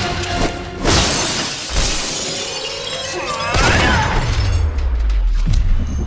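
Shattering and crashing impacts from an action-scene soundtrack. About halfway through a deep boom comes in, falling in pitch, and it holds until near the end.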